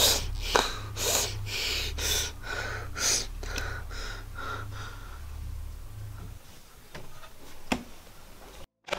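A man breathing in quick gasps, about two a second, as he cries. The gasps fade over the first five seconds. Under them runs a low hum that stops about six seconds in, and two faint clicks come near the end.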